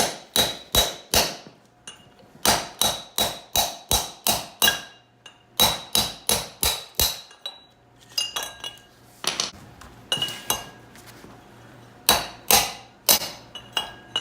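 Hammer striking a metal bearing driver to drive a bearing, in runs of quick blows about three a second with a ringing metallic clang and lighter taps in the middle.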